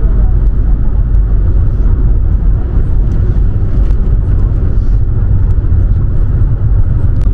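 Car travelling at motorway speed, heard from inside: a steady low rumble of road and engine noise.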